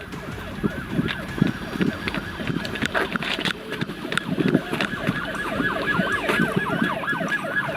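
Police car siren in a rapid yelp, quick falling sweeps repeating about four times a second.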